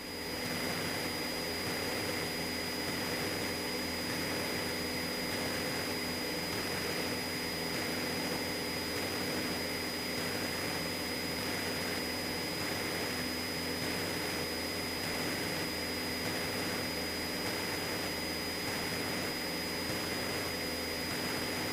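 Cessna 172's piston engine and propeller running steadily in the climb, heard inside the cabin as an even drone. A thin, steady high-pitched whine runs over it.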